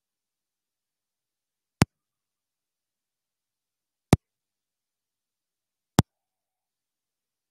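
Dead silence broken by three sharp, isolated clicks, about two seconds apart.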